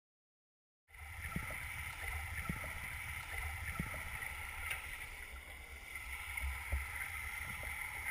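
Stream water recorded underwater: a muffled low rumble of flowing water under a steady hiss, with a few soft knocks scattered through it. It starts abruptly about a second in.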